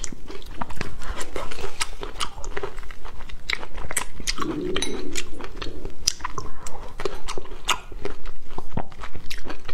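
Close-miked mouth sounds of a person biting and chewing fresh cherries: a dense run of wet clicks and smacks, with a short hum near the middle.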